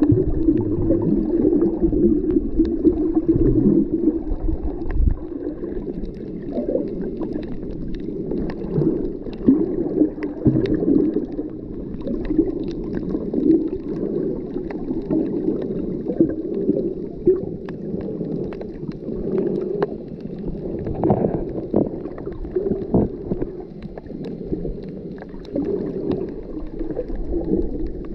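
Muffled underwater sound just below the surface: water sloshing and gurgling against the camera, with scattered faint clicks.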